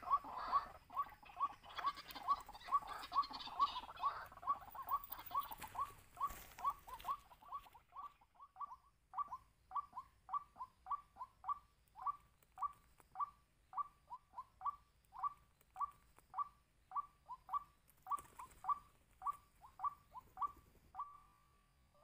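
White-breasted waterhen calling: a long series of short, hooked call notes repeated about three a second at first, then slowing to about two a second and spacing out toward the end, with scratchy rustling over the first several seconds.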